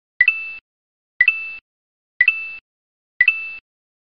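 Four identical short sound-effect beeps, evenly about a second apart, each a sharp click followed by a brief high steady tone. Each marks a new checkmarked line popping onto a title card.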